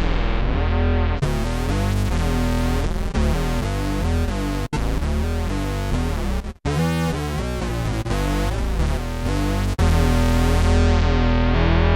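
Electric bass played through an MXR Bass Synth pedal, giving a run of sustained synth-bass notes that change pitch every half second or so. The notes stop briefly about five and seven seconds in.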